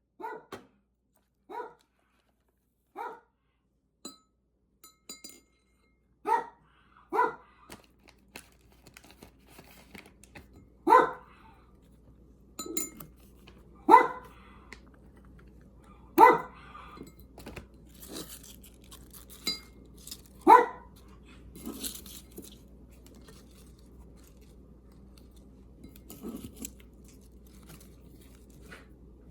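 A small dog barking in short single yelps, about nine of them at irregular gaps, the loudest in the middle, with fainter ones near the end.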